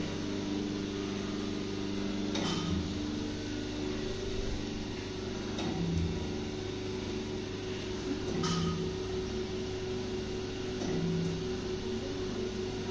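Electric dough ball cutting machine, a 0.5 HP motor driving a gearbox, running with a steady hum, with a short low knock that repeats about every three seconds as it cycles.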